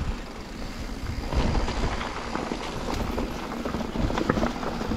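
Mountain bike rolling over a rough dirt trail: tyres rumbling on the ground, with rattling clicks and knocks from the bike and wind on the microphone, getting louder about a second in.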